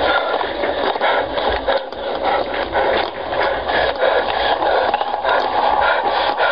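Loud, harsh crackling noise with many irregular clicks and scratches.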